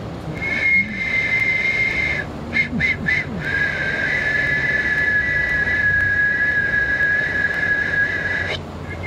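A man whistling one long, high, steady note into a telephone handset. It breaks into a few short notes about two seconds in, then is held again slightly lower until it cuts off near the end.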